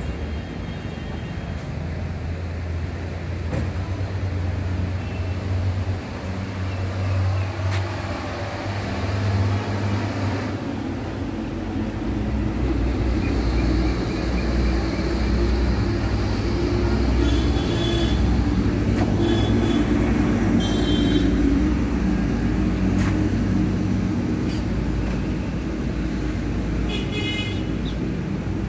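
Road traffic: a steady low engine rumble that grows louder about halfway through, with a few short horn toots in the second half.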